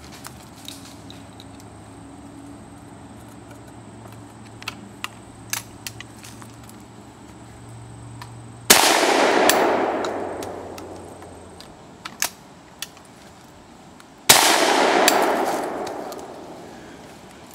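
Two shots from a New England Firearms single-barrel 12-gauge break-action shotgun, about six seconds apart, each report echoing and dying away over about two seconds. Light clicks of the action being opened and closed come between the shots.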